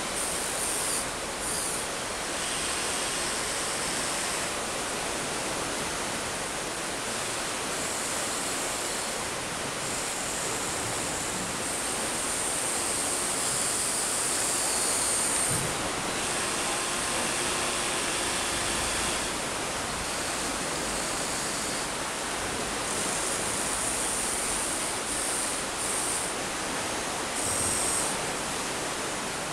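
Steady rush of river water, with a faint high whine from the RC excavator's electric motors starting and stopping several times as the arm works.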